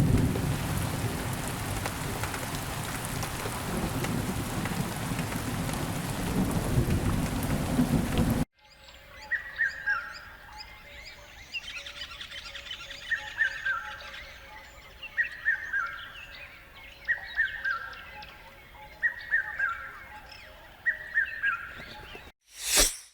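Heavy rain with rumbling thunder that cuts off sharply about eight seconds in. After it comes a quiet outdoor ambience in which a bird repeats a short falling call about every two seconds. A brief burst of noise sounds near the end.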